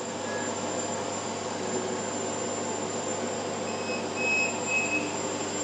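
Aeon Mira 5S laser engraver running an engraving job on its rotary at high speed (20,000 mm per minute): a steady mechanical hum from the machine's motors and fans, with a thin high tone throughout and a few short higher tones about four seconds in.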